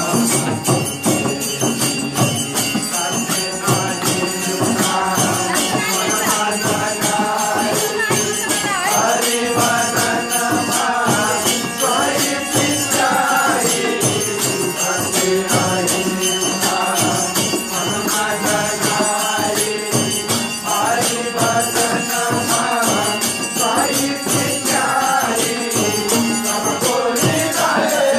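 Men singing a Hindu devotional bhajan together to a harmonium, with a hand frame drum and hand clapping keeping a steady rhythm.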